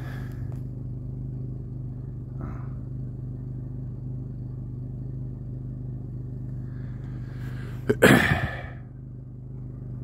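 A steady low engine hum, like an idling motor. About eight seconds in there is a brief loud rustling burst, like handling or wind on the microphone.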